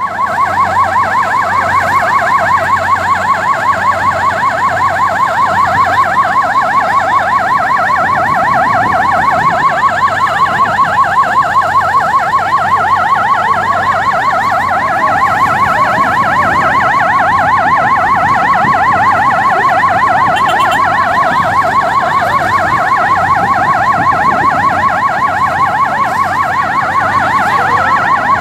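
Emergency vehicle siren sounding a loud, continuous fast yelp, its pitch warbling up and down several times a second, responding to a boat fire.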